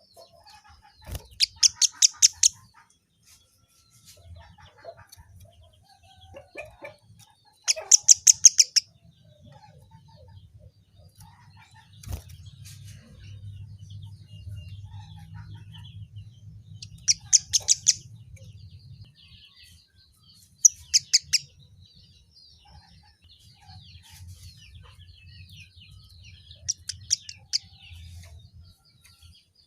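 Kemade (emprit kaji) songbird singing: five short bouts of rapid, high, evenly repeated notes a few seconds apart, with soft high twittering in between. A faint low hum runs underneath.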